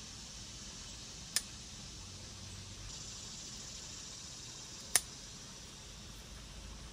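Two sharp snips of black-handled scissors cutting through lemon basil flower stems, about three and a half seconds apart, over a steady faint hiss.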